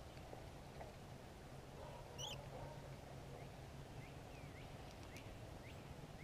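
Quiet background with a few short, faint, high-pitched squeaks or chirps. The clearest comes about two seconds in, and fainter ones follow at roughly half-second intervals.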